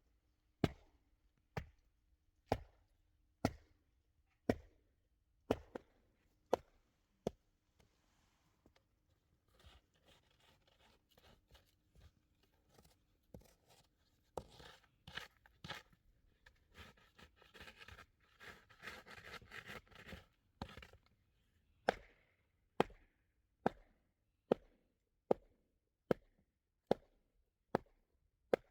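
Repeated chopping, one sharp stroke about every second. In the middle the strokes stop for a while and give way to crunching and scraping, then the steady chopping resumes.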